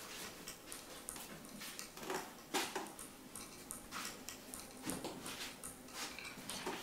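Quiet avant-garde sound piece of scattered, irregular clicks and taps, with a few stronger strikes spaced a second or so apart.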